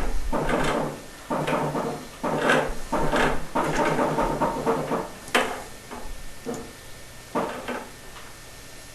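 Repeated scraping strokes of hand-tool work on plumbing, roughly one every half second to a second, dying away after about five seconds into a couple of fainter strokes.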